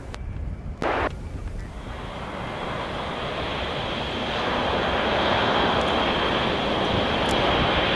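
Jet engine noise of a Boeing B-52 Stratofortress flying low overhead on its eight jet engines: a broad rushing sound with a steady high turbine whine, building louder over the first few seconds and then holding. A short rush of noise about a second in.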